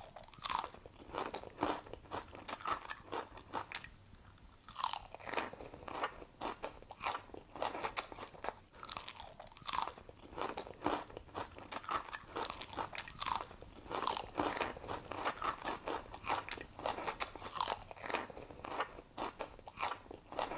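Crunchy chewing sound effect of an animal grazing on plants: an irregular run of crisp crunches, several a second.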